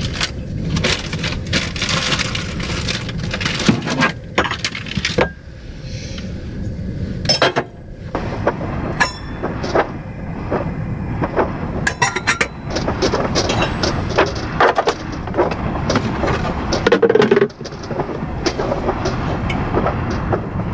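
Storm wind rumbling and buffeting against a van, with many scattered clinks and knocks of small items being handled inside.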